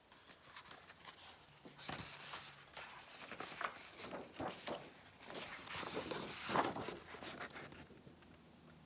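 Paper rustling and flapping as the stiff pages of a picture book are turned and a fold-out spread is opened out, with a few sharper snaps; loudest about six and a half seconds in.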